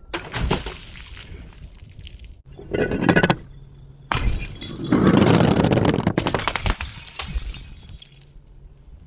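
A glass bottle breaking and its glass crunching in three bursts of many sharp cracks. The longest and loudest burst comes about four seconds in and lasts about three seconds.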